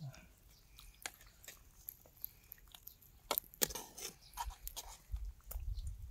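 A person chewing and biting food at the mouth, with scattered short crunches and wet clicks that come more often in the second half.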